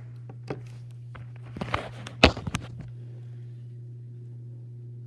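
A few sharp knocks and a short burst of clattering, the loudest a little past two seconds in, over a steady low hum.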